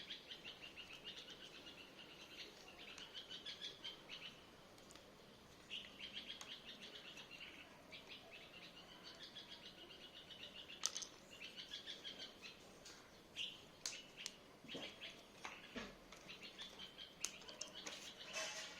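Small birds chirping in quick twittering runs, faint and almost without a break, with a few sharp clicks now and then.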